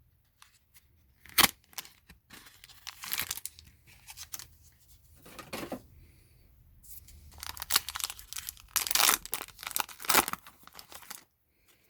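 A foil Pokémon card booster pack being torn open and its wrapper crinkled, in irregular rips and rustles with a sharp click early on and a dense run of tearing in the second half.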